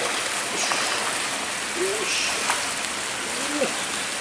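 Steady, even hiss of water noise.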